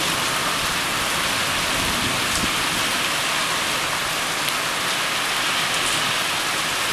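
Heavy rain falling during a thunderstorm: a steady, even hiss with no thunder clap.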